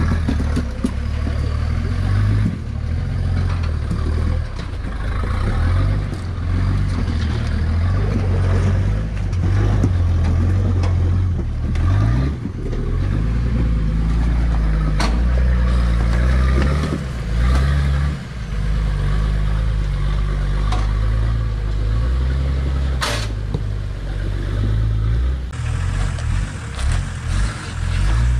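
Off-road 4x4 engine running at low revs, the revs rising and falling as it crawls over rocks, with a couple of sharp knocks.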